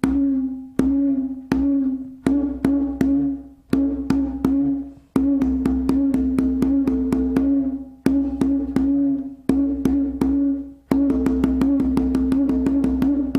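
Haitian hand drum played with bare hands in a practice rhythm: sharp strokes, each leaving a ringing open tone, breaking into a fast even run of strokes near the end.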